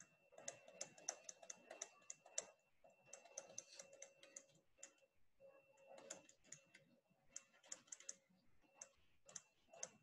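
Faint stylus taps and scratches on a tablet screen during handwriting: irregular clusters of small clicks and ticks.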